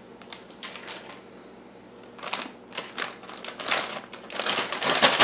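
Plastic Ziploc bag being handled and pressed shut: crinkling plastic and quick runs of small clicks from the zipper seal. Scattered at first, denser from about two seconds in.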